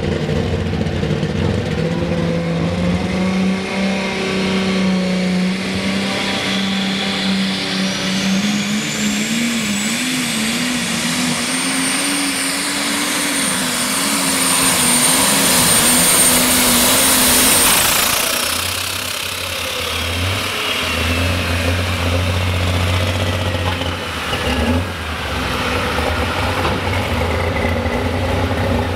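Turbocharged diesel pulling tractor under full throttle on a pull: the engine note climbs with a high whine rising over it and holding at the top. About 17 to 18 seconds in the driver lets off, the whine falls away, and the engine drops to a lower, steady idle.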